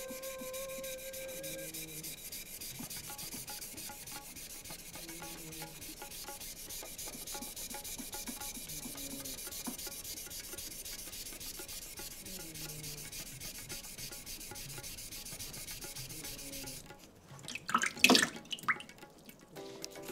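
Steel blade of a leather-cutting knife (kawatachi) being ground in strokes on a wet 3000-grit synthetic whetstone, a steady gritty scraping. Near the end the grinding stops and a brief burst of loud, sharp knocks follows.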